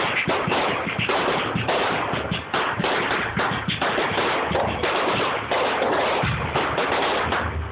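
Fireworks display going off: a dense, continuous run of crackling and sharp bangs, with music playing along.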